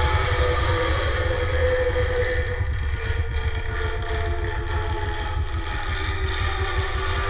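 Dark ambient sound-design drone: a fast, even low throb, like an idling motor, under several sustained tones.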